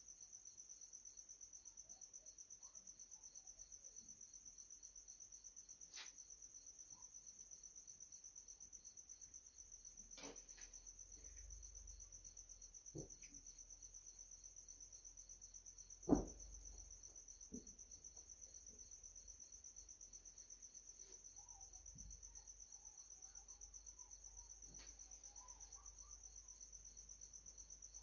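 Faint crickets chirping in a fast, even pulse, with a few soft knocks and one sharper thump a little past halfway.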